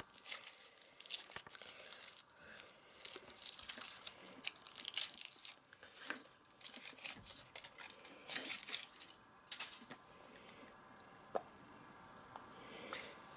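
Foil wrapper being peeled and crinkled off a Kinder Surprise chocolate egg by hand, in quick crackly bursts that stop about ten seconds in. A single click follows a little later.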